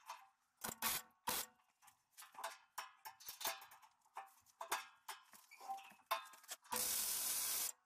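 Scattered light clicks and clanks of steel parts being handled, then near the end about a second of steady, loud welding-arc hiss from a short weld.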